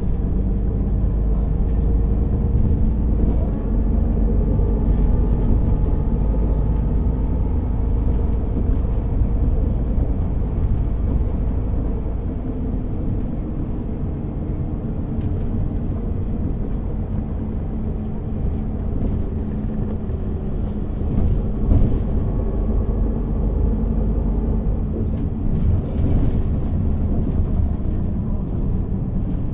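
MAN NÜ 280 city bus running under way, its six-cylinder diesel a steady low rumble. The engine note rises and falls gently with road speed, with light rattles and clicks scattered through it.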